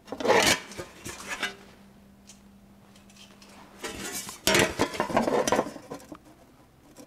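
A formed sheet-steel patch panel scraping and clanking against the steel jaws of a hand bending brake as it is slid into the clamp. It comes in two bursts, a short one at the start and a longer one about four seconds in.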